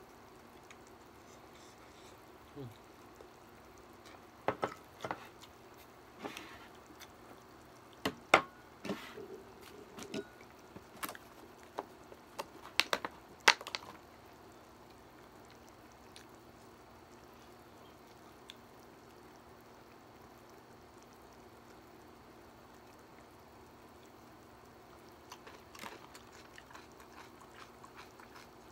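Eating sounds from a bowl of kimchi hot pot: a string of sharp clicks and knocks of wooden chopsticks against a ceramic bowl and the bowl being set down on the table, with wet liquid sounds of the soup, mostly in the first half. After that it is quiet over a steady low hum, with a few faint clicks near the end.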